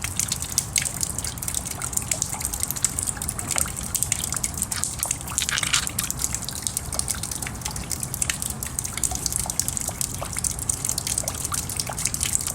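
Steady rain dripping and trickling, with many small irregular drip ticks.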